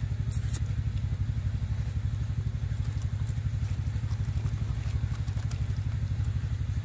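A small engine running steadily, a low throb with a fast, even pulse.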